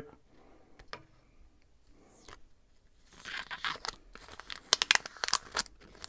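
Paper pattern and packing tape being peeled off a scroll-sawn wooden piece, crackling and tearing. It starts about halfway in, with a few sharp snaps near the end.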